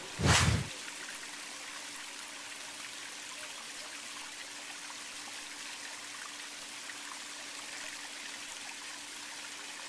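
A brief loud burst about half a second in, then a steady even hiss with a faint low hum underneath.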